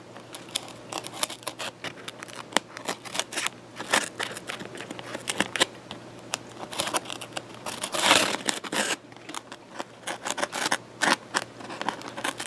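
X-Acto hobby knife cutting tabs out of a foam wing: an irregular string of short scratchy clicks and crackles as the blade works through the foam, with a longer rasping cut about eight seconds in.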